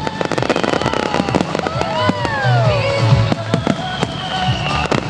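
Fireworks display finale: dense, rapid crackling and bangs, with music playing alongside.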